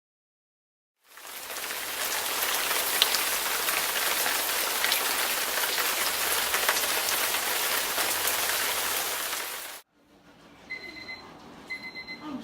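Heavy rain falling steadily for about eight seconds after a second of silence, then cutting off abruptly. Near the end, two short high electronic beeps about a second apart.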